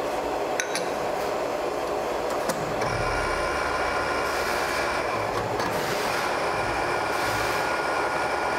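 Steady hum of workshop machinery around a metal lathe, a deeper hum setting in about three seconds in, with a couple of light metal clinks near the start as a small steel part is handled at the lathe.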